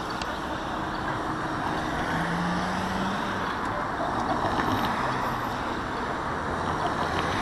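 Street traffic noise: a car driving past at a crossing over the steady rumble of city traffic.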